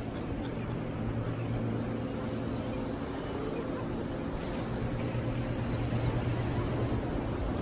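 Steady low drone of a motorboat's outboard engines as the boat runs out to sea, over a constant background hiss.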